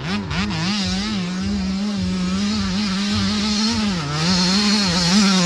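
Dirt bike engine revving up and down as the rider works the throttle along the dirt track, getting louder as it approaches, with a brief drop in revs about four seconds in.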